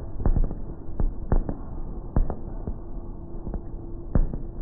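Fireworks going off in quick succession: a string of about nine sharp bangs at uneven spacing, the loudest near the end. A steady low hum comes in about halfway through.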